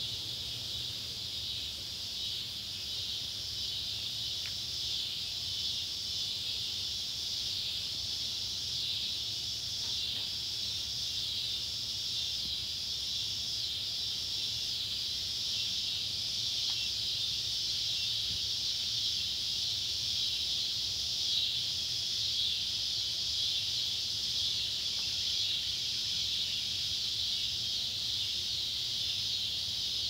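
Scissor-grinder cicadas (Neotibicen pruinosus) and swamp cicadas (Neotibicen tibicen) calling together: a steady, high-pitched buzz with an even pulsing rhythm.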